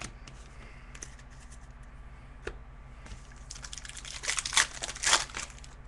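Trading card packs being handled: a few faint clicks, then, about three and a half seconds in, a couple of seconds of wrapper crinkling and cards rustling, loudest in two short bursts near the end. A low steady hum runs underneath.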